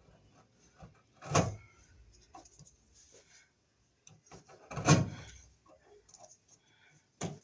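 Knife scoring down the plastic jacket of two-wire Romex cable, with faint scraping and ticking and two louder knocks or rustles from handling the cable, about a second and a half in and again about five seconds in.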